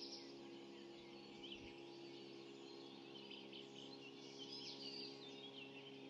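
Faint dawn chorus of several small songbirds chirping and trilling, busiest at the start and again near the end, over a steady low hum.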